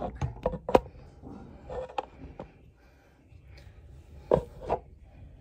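Scattered light knocks and clicks: a quick run of them in the first second, another about two seconds in, and a louder pair near the end, over quiet room tone.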